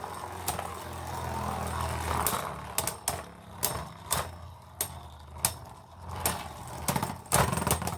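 Two Beyblade spinning tops battling in a plastic stadium: a low whirring hum from their spinning fades out over the first couple of seconds, while sharp clacks of the tops hitting each other and the stadium wall come again and again, with a quick run of them near the end.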